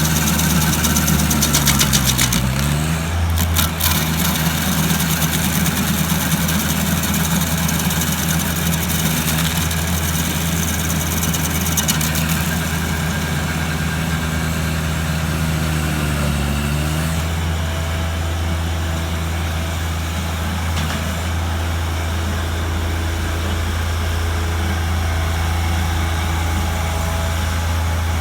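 Engine running steadily, its speed dipping briefly and recovering twice, with a few clicks early on.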